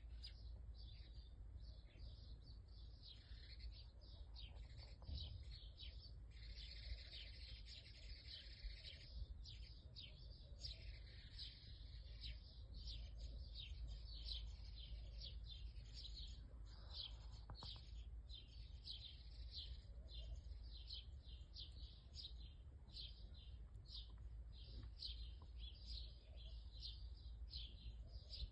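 Small birds chirping faintly and repeatedly, about two short high chirps a second, without a break.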